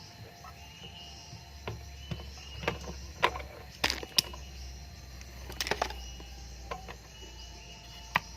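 Irregular sharp clicks and knocks of hand tools working on refrigerator pipework, about ten over several seconds with the loudest near the middle, over a low steady hum that starts early on.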